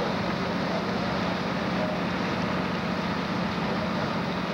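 Fire engines running at the fireground, their engines driving the pumps: a steady drone with a constant hum over a broad rushing noise.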